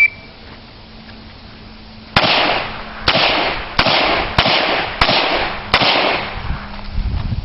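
A shot timer's start beep, then six handgun shots fired about two-thirds of a second apart, each sharp crack trailing a short echo.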